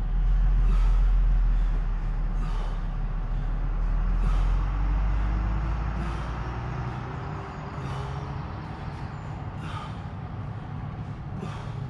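Heavy, rhythmic breathing of a man doing butterfly sit-ups, a hissing breath about every two seconds. Under it a deep low rumble is the loudest sound, strongest in the first few seconds and fading away by about halfway.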